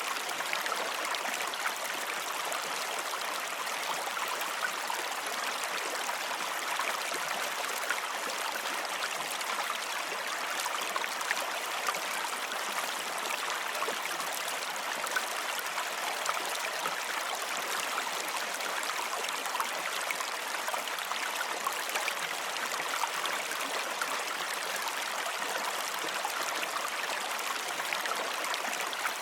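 Running water flowing steadily, like a stream, with a constant bubbling rush.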